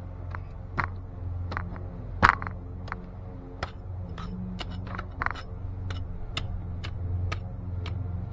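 A shovel digging in garden soil: irregular scrapes and clicks as the blade cuts in and strikes roots and debris, with one sharp loud strike about two seconds in. A steady low hum runs underneath.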